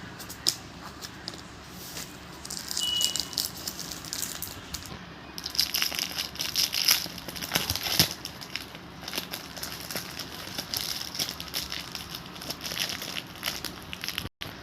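Packaging of trading-card packs crinkling and crackling as it is handled and opened, in irregular bursts with sharp clicks, getting busier about five seconds in.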